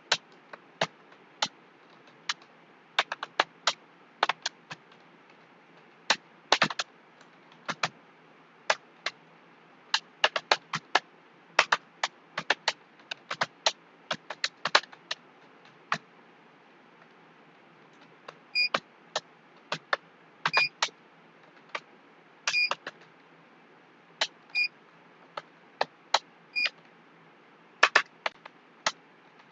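Computer keyboard typing at about 40 words per minute: unhurried, irregular key clicks, a few a second. In the second half, some clicks about two seconds apart carry a short ringing tone.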